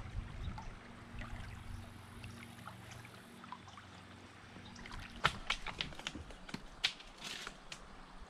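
Kayak paddling: water trickling and dripping off the paddle blades and lapping at the hull. A faint low hum runs through the first few seconds, and a run of sharp ticks and small splashes comes about five to seven seconds in.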